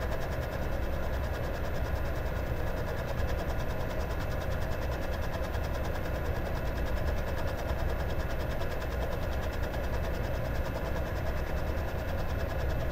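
Taig micro lathe running steadily: its electric motor and belt-driven spindle turning while the power feed draws the carriage along the lead screw for a turning pass.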